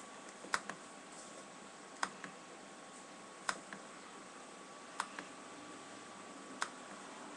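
Faint clicking at a computer: five click pairs, each a sharp press followed a moment later by a softer release, about every one and a half seconds, with a faint steady whine underneath.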